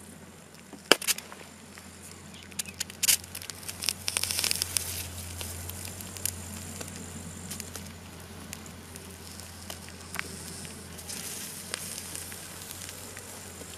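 Molten lead poured in a thin stream onto chicken eggs, crackling and sizzling, with a few sharp pops in the first few seconds (the loudest about a second in) and a hiss around four to five seconds in, over a steady low hum.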